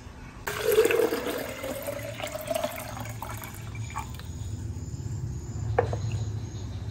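Water being poured into a glass jar, the pitch rising as the jar fills. A short knock comes near the end.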